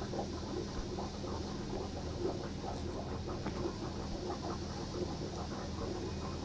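Aquarium background: a steady low hum under a dense, irregular bubbling and gurgling of water, typical of tank aeration or a filter.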